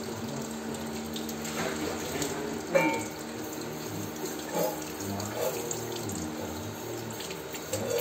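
Tap water running steadily into a ceramic wash basin while a green parakeet bathes under the stream, splashing and fluttering its wet wings. A sharper splash comes about three seconds in.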